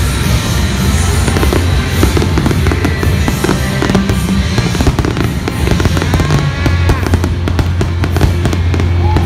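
Aerial fireworks display going off in quick succession, a thick run of bangs and crackling bursts, with music playing underneath.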